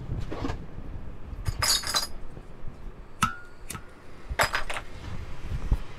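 Light metal clinks and taps of silverware pieces and tools being handled on a soldering block: several separate strikes, some with a brief ring.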